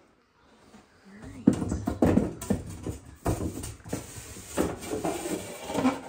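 Wooden beadboard panel being shoved into a tight opening, knocking and scraping against the cabinets and tile in a run of loud thumps and scrapes that starts about a second in.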